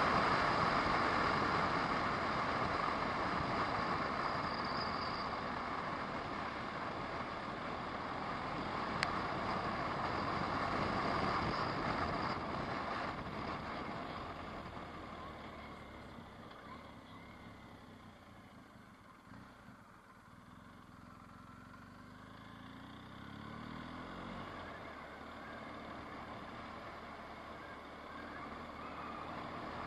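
Car driving on a winding road, heard from inside the car: steady engine and tyre noise that fades down around the middle and then rises again as the engine picks up, with one sharp click about nine seconds in.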